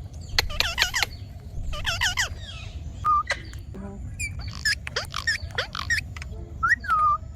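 Ringneck parrot calling: a run of short squawks and chirps that glide up and down in pitch, coming in quick clusters every second or so.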